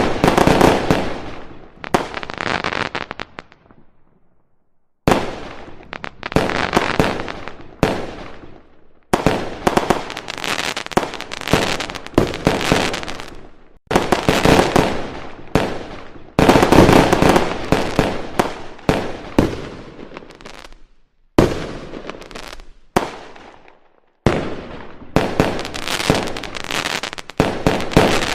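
Aerial fireworks display: volleys of shell bursts one after another, each trailing off in crackle, with two brief lulls, about four seconds in and again near the end.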